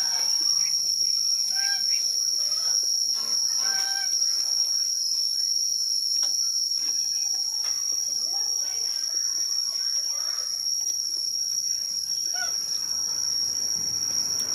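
Steady high-pitched insect drone, with a few short bird chirps in the first four seconds and scattered small clicks of someone chewing crisp cabbage leaves.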